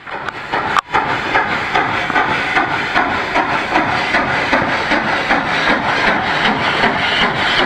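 Steam locomotive No. 9 working a passenger train past at close range: rhythmic exhaust chuffs, about two and a half a second, over a steady hiss of steam. There is a brief break about a second in.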